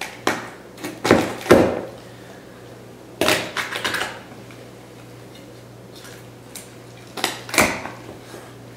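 A sharp knife cutting along a raw chicken's backbone, crunching and knocking through the rib bones in short bursts: a few in the first two seconds, another cluster a little over three seconds in, and a last pair near the end.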